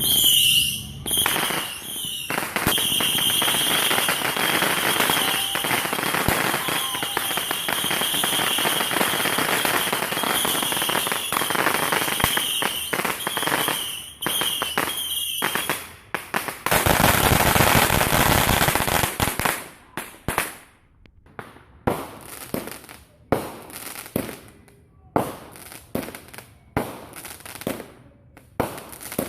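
Consumer fireworks going off. First comes about sixteen seconds of dense crackling with a steady high whistle. A louder hissing spray lasts a few seconds, and then single sharp pops follow, about one a second.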